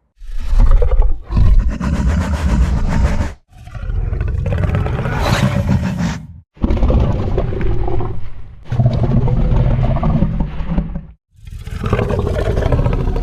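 Indominus Rex dinosaur roar sound effects, a film creature's roar built from layered animal calls: about six loud, deep roars in a row, each one to three seconds long, separated by short silences.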